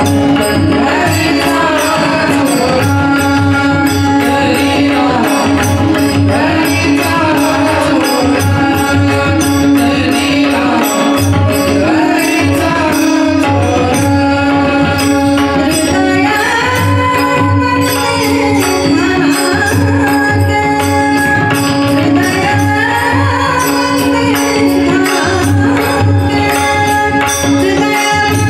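Marathi devotional abhang sung by a woman's voice, accompanied by harmonium over a steady drone, a barrel drum and small hand cymbals keeping a fast, even beat.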